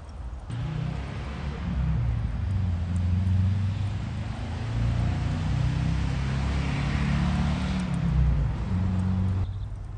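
A motor engine running, with a low hum that shifts in pitch. It cuts in about half a second in and cuts off near the end.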